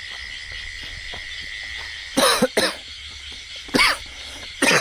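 A person coughing in four short, harsh coughs: two close together about two seconds in, then two more singly near the end. Insects chirr steadily underneath.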